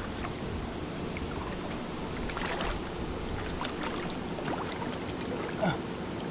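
Steady rush of flowing river water, with a few short splashes from a hooked catfish thrashing at the surface as it is landed by hand.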